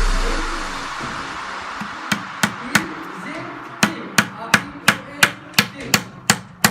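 Hammer blows, likely driving nails while building a nest box: three strikes, a short pause, then a quick run of about nine more at roughly three a second. Electronic music with heavy bass fades out in the first second.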